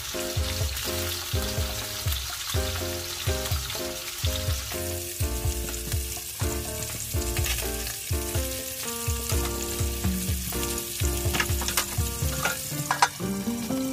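Salmon steaks and mackerel pieces sizzling and crackling as they fry in oil in a pan. Background music with a steady beat plays over it.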